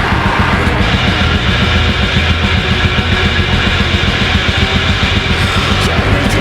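Loud, dense heavy metal music with a fast, steady low beat.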